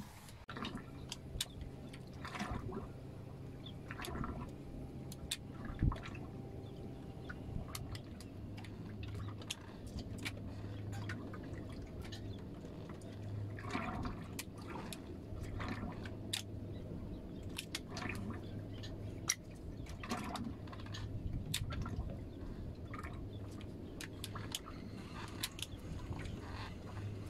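Water lapping and sloshing against the hull of a small boat, with scattered light clicks and knocks and a low steady hum underneath.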